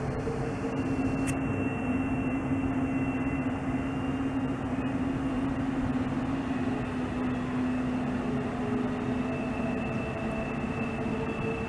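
Train going by, a steady rumble with a low droning tone throughout.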